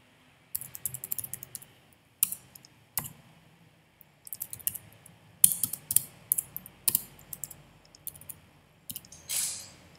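Typing on a computer keyboard: quick runs of sharp key clicks in irregular bursts, with short pauses between them.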